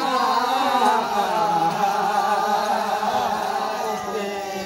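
Voices singing a Limbu (Yakthung) palam in a slow, chant-like melody with long held notes, unaccompanied. This is the song sung by the circle of dancers in the yalang paddy dance.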